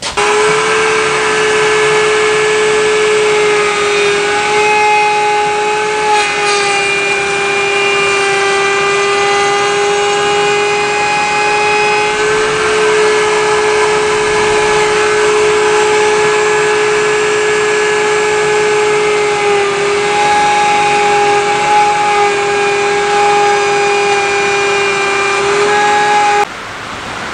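Table-mounted router running at speed with a steady high whine, its bullnose (round-nose) bit cutting a rounded hand-hold slot into a wooden cutting board. The whine cuts off abruptly near the end.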